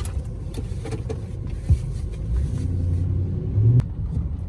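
Car running at low speed, heard from inside: a steady low rumble, with the engine note rising somewhat in the second half as it manoeuvres, and a sharp click near the end.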